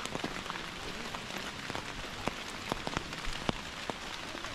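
Heavy rain falling steadily, an even hiss with individual drops tapping sharply close by at irregular moments.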